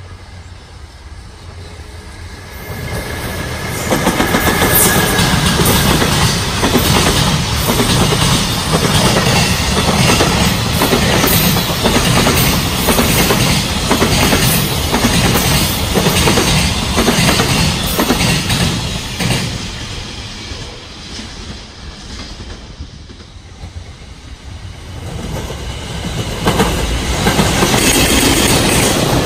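A long container freight train passes at speed, its wheels beating a steady clickety-clack over the rail joints; the sound swells over the first few seconds and fades after about twenty seconds. Near the end a second freight train, headed by a JR Freight EF210 electric locomotive, rushes in close by with the same rising rail clatter.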